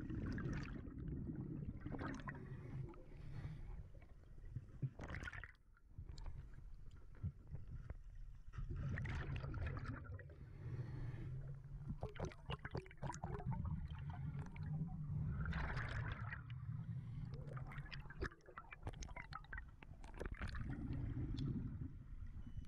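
Underwater sound of a scuba diver's exhaled regulator bubbles, gurgling in repeated bursts over a steady low rumble of moving water.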